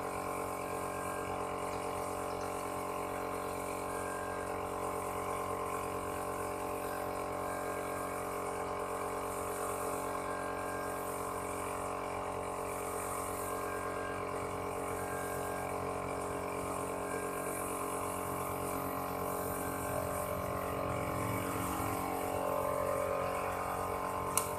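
Steady mechanical hum of a motor running, with a faint short tone repeating about every two seconds and a single click near the end.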